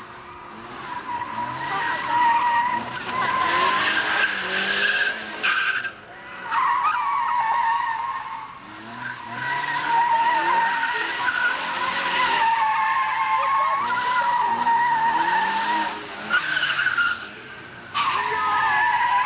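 Car tyres squealing on tarmac as a saloon is thrown through tight turns around cones, with the engine revving up and down underneath. The squeal breaks off briefly about six seconds in and again shortly before the end.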